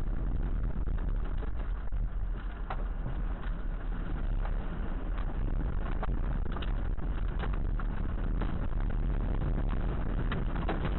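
Tornado wind heard through a vehicle dashcam: a steady low rumble with scattered sharp ticks and taps of rain or debris striking the vehicle, growing more frequent in the second half.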